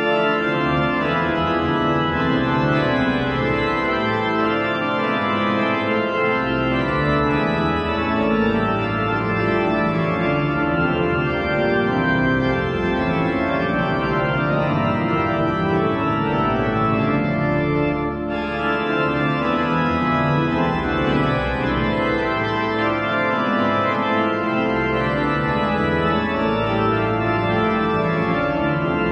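Church pipe organ playing a full-voiced piece of loud sustained chords over a moving bass line, starting suddenly.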